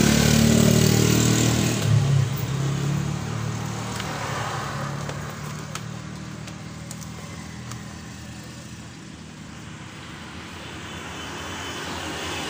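A motor vehicle engine passing, loudest at first, with its pitch falling over the first two seconds before it fades away; a few faint clicks follow later.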